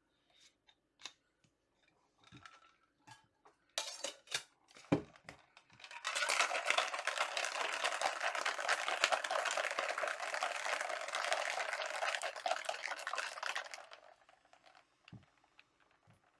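A mixed drink being shaken in a cocktail shaker for about eight seconds, a loud steady noise, after several light clicks and knocks of bottle and lid.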